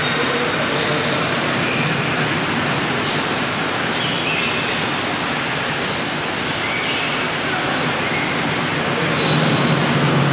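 Steady rushing water in the otter exhibit pool, an even hiss with no change in level. Faint short high-pitched sounds come through it now and then.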